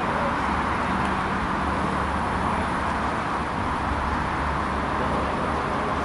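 Steady outdoor background noise with a low rumble and no distinct events.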